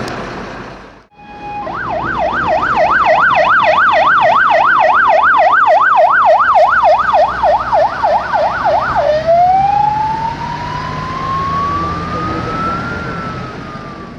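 Ambulance siren, first in a fast yelp of about three rising-and-falling sweeps a second, then switching about nine seconds in to a slow wail that climbs and begins to fall near the end. Before it starts there is a second of vehicle noise that cuts off abruptly.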